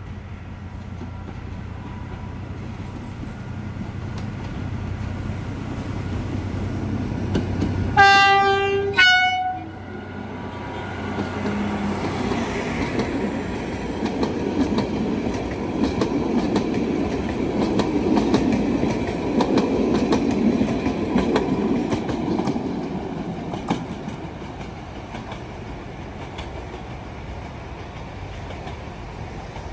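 BDZ class 77 narrow-gauge diesel locomotive drawing closer and louder, then sounding two short horn blasts about a second apart. Its passenger coaches then roll past with wheels clattering on the rails, and the noise fades as the train moves away.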